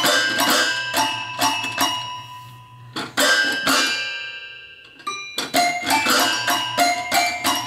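Children's toy piano, keys pressed by hand: bright plinking notes that ring on, played in three quick groups with short pauses between.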